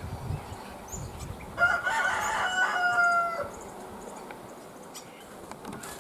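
A rooster crowing once: a single call of about two seconds, starting a little over a second and a half in and dropping slightly in pitch at the end.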